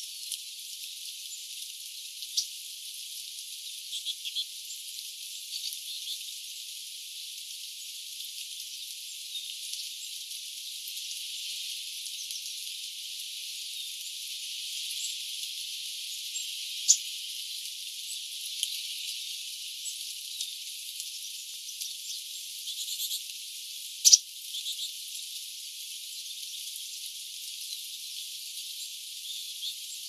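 Steady rain falling on woodland, an even hiss with the low end filtered out, with scattered sharp ticks, two of them louder a little past halfway and about four-fifths of the way through.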